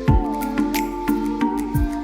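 Background music: a gentle electronic track, with sustained melody notes over a beat of deep kick-drum thuds and sharp hi-hat ticks.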